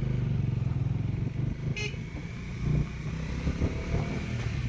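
Bajaj Dominar 400's single-cylinder engine running under the riders, with a steady high tone joining about two seconds in.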